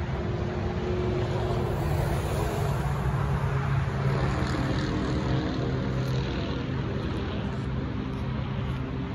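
Road traffic at a railroad crossing: cars drive over the tracks with engine and tyre noise, which swells as a car passes partway through.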